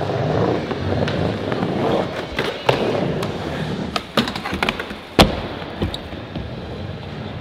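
Skateboard wheels rolling over a wooden ramp surface, broken by sharp clacks of the board popping, landing and striking a ledge. The loudest clack comes about five seconds in.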